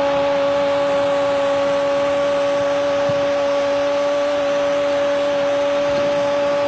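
Football commentator's drawn-out "goool" goal cry, held as one long note at a steady pitch over the constant noise of the stadium crowd.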